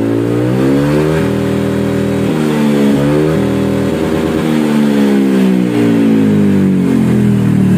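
Honda Vario 160 scooter's single-cylinder engine run through an SKR aftermarket muffler, revved hard with the rear wheel spinning free on the center stand until the speedometer reads about 135 km/h. The pitch climbs in the first second, holds high with small steps, then falls away over the last few seconds as the throttle is eased off. The muffler's tone has been smoothed so that it does not blare.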